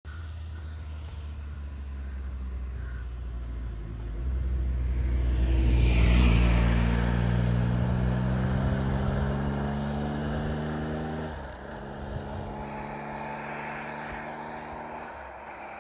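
Wind rumbling on the microphone of a moving road bike, with a motor vehicle's engine drone building up and loudest about six seconds in. The engine holds a near-steady pitch, breaks off briefly about eleven seconds in, and fades toward the end.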